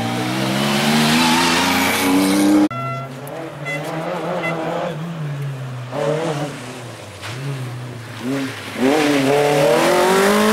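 Historic rally cars accelerating hard out of a tight corner. An engine revs up as the car pulls away, then the sound cuts off abruptly a little under three seconds in. A quieter engine note comes and goes as another car approaches, and near the end a loud engine climbs in pitch as that car accelerates out of the corner.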